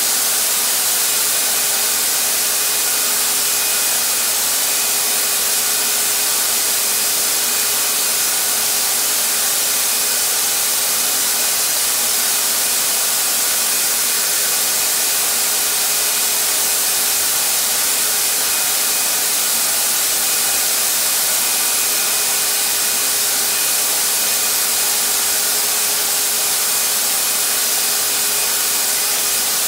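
Harbor Freight HVLP turbine paint sprayer running steadily, a constant motor whine under the loud hiss of air and paint from the spray gun.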